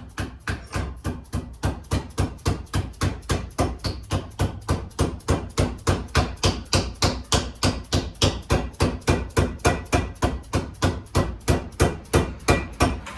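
Rubber dead blow mallet tapping a new outer wheel-bearing seal into place around its edge, a steady run of rapid strikes at about four a second, driving the seal home over the freshly installed bearing.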